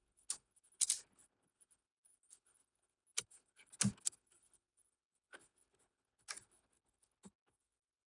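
Scattered, irregular clicks of a computer keyboard and mouse, with a few louder strokes near the start and about four seconds in.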